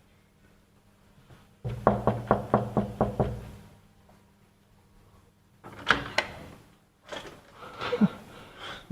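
Knuckles knocking on a door: a quick run of about eight raps, then two more sharp knocks a few seconds later.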